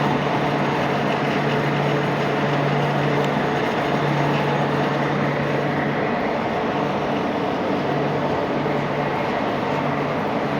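Passenger train moving along the platform track as it departs, a steady rumble with a low hum running under it.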